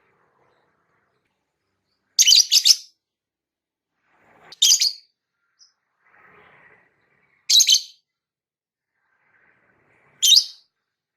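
Lovebird giving short, sharp high-pitched chirps: a quick run of about three notes about two seconds in, then single calls roughly every two and a half to three seconds, with silence between.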